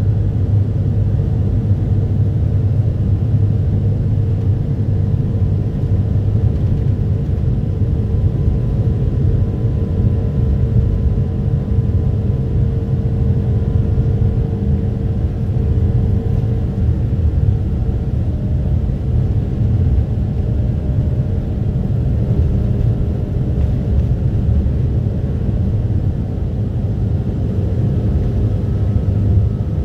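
Cabin noise of a Boeing 777-200 with Rolls-Royce Trent engines taxiing: a steady low rumble with a faint steady hum over it.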